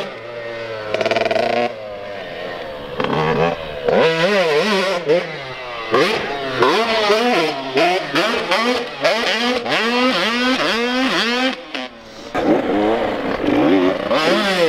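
Two-stroke Super Mini dirt bike engine revving hard and backing off over and over as the rider works the throttle through corners and jumps, its pitch climbing and falling every half second or so. There is a brief lull about twelve seconds in, off the throttle.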